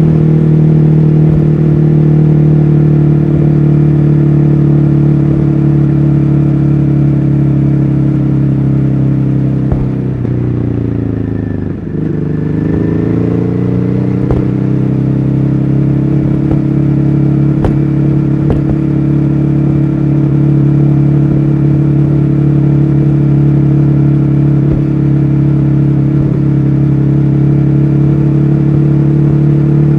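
Ducati Hyperstrada's 821 cc L-twin engine running steadily under way. About ten seconds in the engine speed falls for a second or two, then climbs back to a steady pull.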